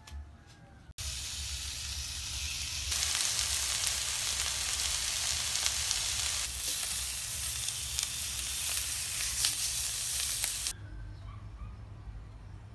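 Whole fish sizzling on a hot stovetop grill pan over medium-high heat, a steady frying hiss. It starts suddenly about a second in, grows louder a couple of seconds later, and cuts off near the end.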